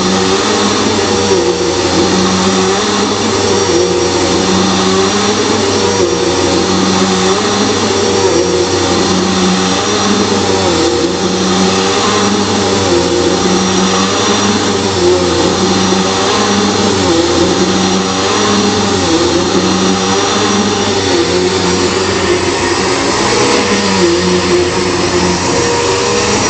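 Bissell PowerForce Turbo Pet 3332 upright vacuum cleaner running steadily while vacuuming, its lower motor note swelling and fading about once a second.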